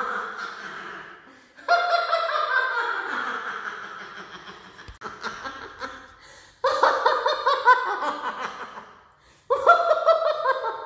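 An older woman's wordless laughing in several long bouts, each starting sharply and trailing off, fresh bouts beginning about two, seven and nine and a half seconds in.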